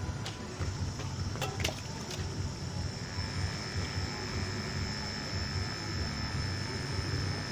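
A toy remote-control excavator's small electric motors whirring as it raises its boom, with a few clicks about a second and a half in and a thin high whine joining about three seconds in.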